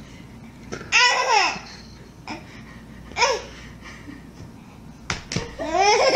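Baby laughing, in three short bouts of high laughs that fall in pitch: about a second in, about three seconds in, and a longer bout near the end.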